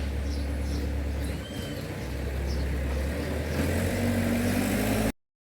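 Ford Corcel's four-cylinder engine idling steadily, a little louder for its last second or so, then cutting off suddenly.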